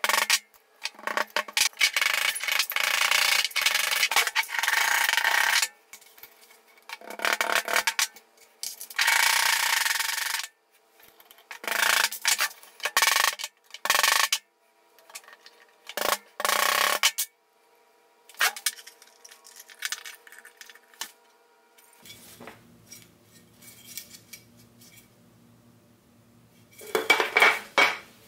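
Metal tapping and scraping on a small steel bench anvil as a thin metal part is worked with a mallet, in several bursts of quick strokes a few seconds long with short pauses between. Near the end, tools clatter as they are set down on the bench.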